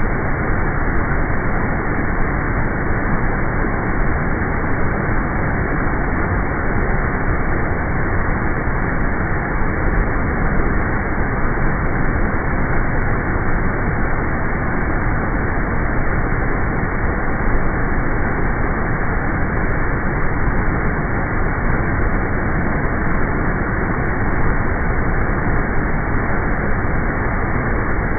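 Loud, steady rush of fast-flowing floodwater, an even noise with no breaks.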